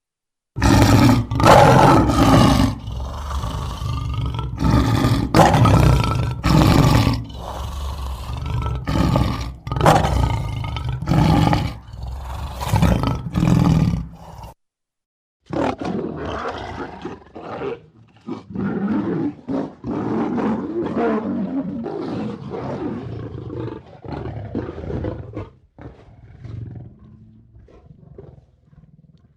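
Lion roaring: a series of deep, loud roars and grunts about a second apart. It breaks off suddenly about halfway through, then a second, quieter roaring bout follows and tapers into shorter, fainter grunts near the end.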